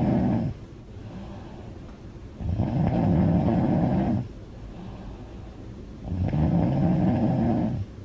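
A young woman snoring loudly with her mouth open: long snores about every four seconds, the end of one just at the start and two more full ones, with quieter breathing between them.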